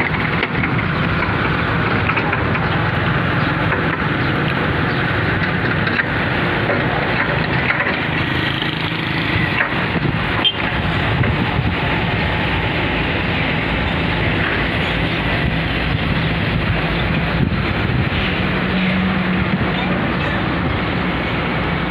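Steady din of motor engines and traffic on a wet road, with a low engine hum underneath.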